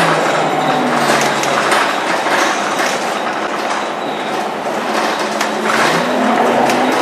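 Diesel engine of a Scania K230UB Euro 4 bus heard from inside the cabin. Its note drops at the start and stays low while the bus rolls slowly, then climbs again near the end as it accelerates. Knocks and rattles are heard throughout.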